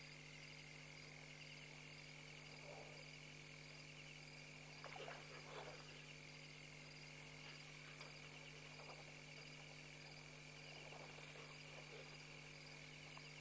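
Faint night chorus of frogs and insects at a waterhole: a steady high trilling over a low electrical hum, with a few louder croaking calls about five seconds in and again near eleven seconds, and brief sharp ticks around eight and eleven seconds.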